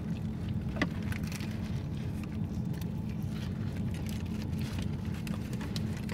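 Steady low hum of the car, heard inside the cabin, with scattered light crinkles of paper food wrappers and chewing, one sharper crinkle about a second in.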